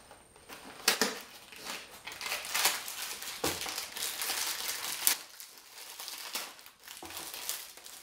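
Packaging of a box of shortbread biscuits being torn open by hand: crinkling and tearing, with a few sharp snaps.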